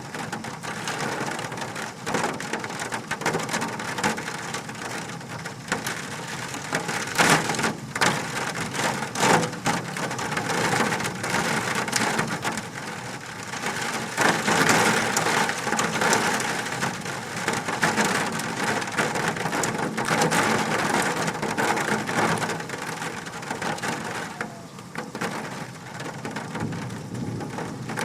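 Large hailstones pelting down in a dense, steady clatter, with many sharp individual strikes and some much louder hits among them.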